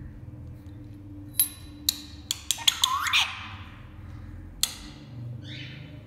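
Indian ringneck parrots making a quick run of sharp clicks, ending in a short squawk, then one more click and a brief call near the end.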